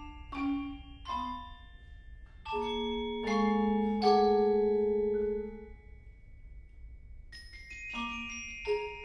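A glockenspiel, xylophone and vibraphone trio playing a courante: struck mallet notes, with a louder low chord held and ringing for about two seconds a few seconds in, a short lull, then quick high notes coming back near the end.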